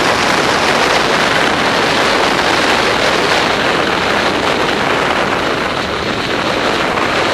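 Loud, steady rush of air over the microphone of a paraglider in fast gliding flight, as wind noise.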